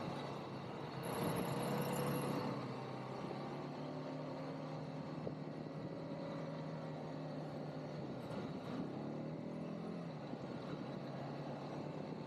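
ATV engine running at low speed, briefly louder with a rise in revs about a second in, then running steadily.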